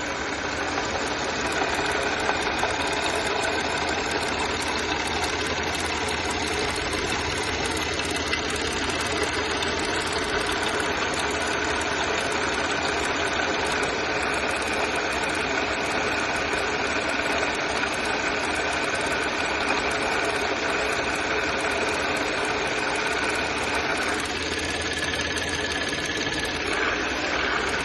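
Audi Q5 engine idling steadily, with the knock (стук) that the owner is recording. The pitch of its tones shifts a little near the end.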